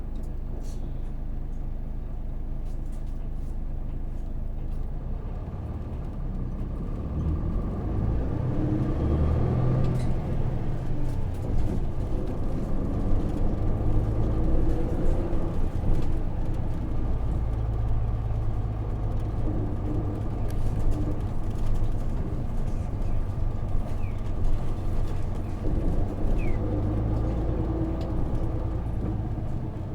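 Interior running sound of a Hino KV234 city bus: its 6HK1 inline-six diesel engine drones as the bus drives, getting louder about seven seconds in as it pulls harder, with the engine note rising and falling after that.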